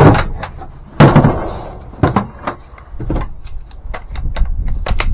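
Hard plastic tool case for a RIDGID press tool being handled and opened: a heavy knock about a second in, then a string of sharp clicks and smaller knocks from the lid, latches and the tool's contents.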